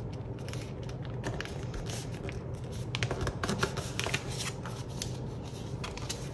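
A sheet of paper rustling and crackling as it is folded and creased by hand, in many small, crisp crinkles. A low steady hum runs underneath.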